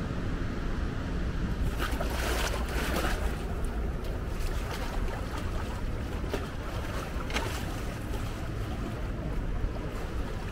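Steady rush of fast-flowing brown floodwater mixed with wind on the microphone, with a couple of brief louder swells.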